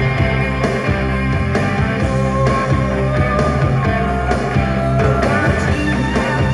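Rock music playing through a Pioneer stereo receiver and its speakers.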